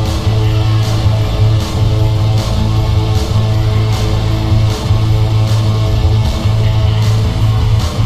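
Music: distorted guitar over a heavy low drone, with a steady beat of about two to three hits a second.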